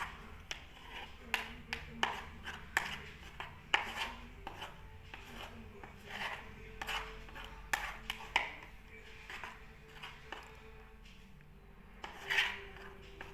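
Slime mixture being stirred in a bowl: a utensil repeatedly scraping and clicking against the bowl, with irregular rubbing swishes.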